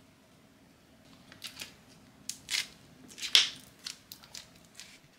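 Butter slime mixed with gooey clear slime being pressed and kneaded by hand, giving a scattered run of short clicks and pops. It starts about a second in, and the loudest pop comes a little past three seconds in.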